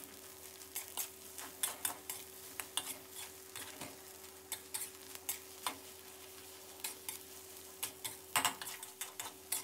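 Metal spatula scraping and tapping against a stainless steel wok as rice and egg are stir-fried dry, in irregular clicks and scrapes several times a second, the loudest a little past eight seconds in.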